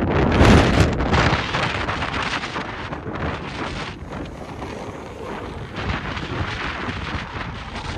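Gusty storm wind buffeting the microphone, with a hard gust about half a second in that then eases off into lower, uneven blustering.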